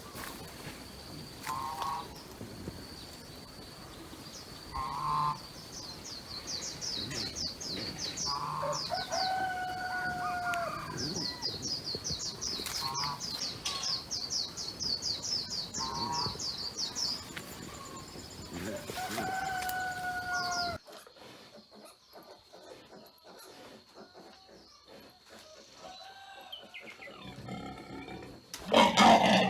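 Roosters crowing again and again: repeated calls of about a second each, several ending in a drawn-out falling note, over a steady high whine and bursts of rapid high chirping. About two-thirds of the way through the sound drops abruptly to a quieter background, and a short loud noise comes near the end.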